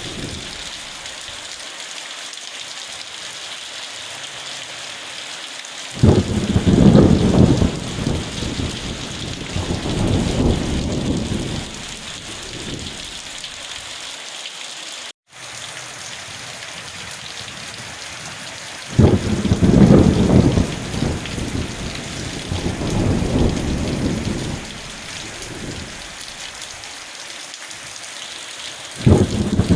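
Steady rain hiss with rolling thunder: three low rumbles that start suddenly, about six seconds in, near twenty seconds and at the very end, each rolling on for several seconds before fading.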